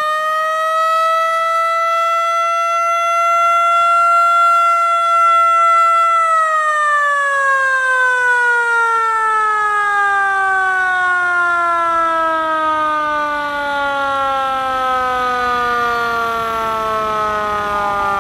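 A siren sounding one long wail. It rises to a steady pitch, holds for about six seconds, then slowly winds down in pitch.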